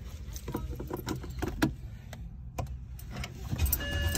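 Clicks and knocks of handling inside the car, then about three and a half seconds in a BMW E90's engine cranks and starts, a low rumble swelling with a steady whine alongside. This is the first start after the fuel pump and pressure regulator replacement.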